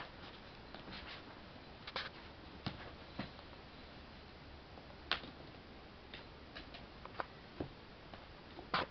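Scattered light taps and rustles, irregular and a second or more apart, from a young kitten scrambling in a fabric play tunnel and pattering over a laminate floor.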